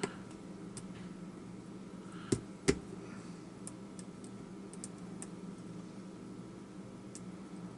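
Light metallic clicks and ticks of a hook pick and tension wrench working the pins of a small Abus padlock, with two louder clicks about two and a half seconds in. A faint steady hum runs underneath.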